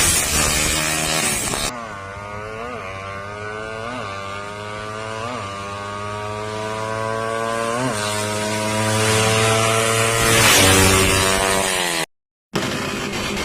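Suzuki Raider R150's single-cylinder four-stroke engine running through a conical aftermarket exhaust pipe. It idles steadily with several quick throttle blips, then revs higher near the end. The sound drops out for about half a second just before the end.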